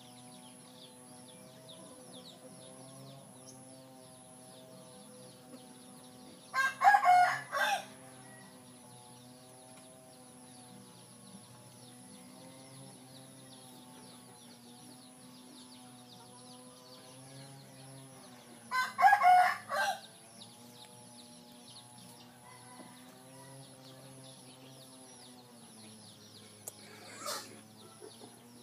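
A rooster crowing twice, each crow about a second long, about seven and nineteen seconds in, with a fainter call near the end, over a faint steady background of soft tones and high hiss.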